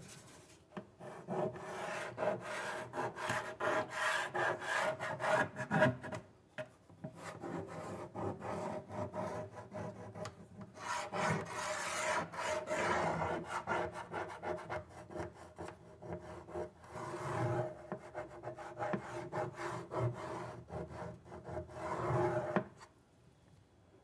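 Drawing tool scratching on a wooden cabinet panel while tracing the cut lines for the appliance openings. The strokes come in long scratchy runs, break off briefly twice and stop about 23 seconds in.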